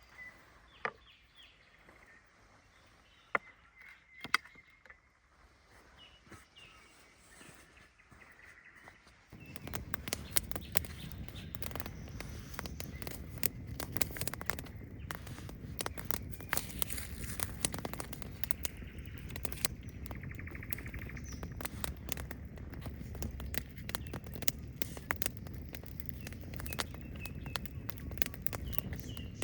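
Faint bird chirps and a few sharp clicks over quiet surroundings. About nine seconds in, a sudden switch to a dense, steady crackling and pattering noise made of many small clicks, which lasts to the end.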